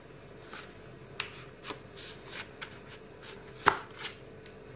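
Scissors snipping into a small cardboard packaging box: a few irregular, sharp snips, the loudest about three-quarters of the way through.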